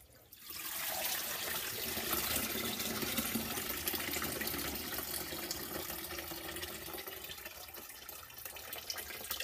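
Water pouring and draining out of a stack of plastic mesh baskets of wet wool locks as they are lifted out of a tub of rinse water, splashing steadily into the tub below. It starts about half a second in.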